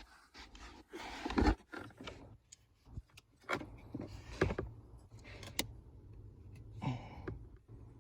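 Scattered clicks, taps and plastic rattles of small parts being handled under a car dashboard as a mini blade fuse is pushed into the interior fuse box, with a few sharper clicks among them.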